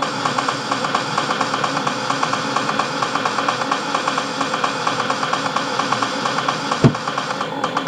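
Goa trance electronic music at about 130 beats a minute: a fast pulsing synth line, with a single deep bass-drum thump about seven seconds in.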